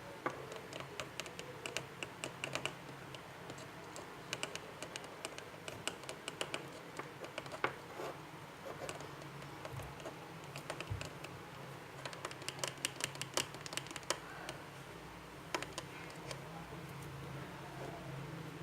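Rapid runs of light clicks and taps from a stirrer knocking and scraping against the container while slime glue and colouring are mixed.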